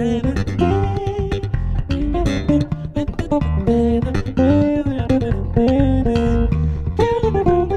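Two basses playing a groove together: one carries a melody of held and sliding notes in the upper register while the other keeps up a busy low line.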